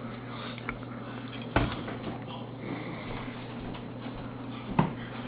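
A steady low hum with two brief knocks, about a second and a half in and near the end.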